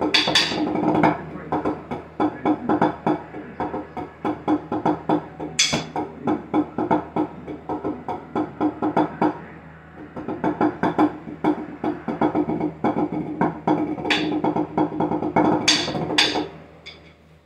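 Drumsticks playing a fast tenor-drum (sextet) solo on a six-pad practice board: dense runs of quick strokes with a short break about ten seconds in and a few sharp stick clicks, stopping about a second before the end.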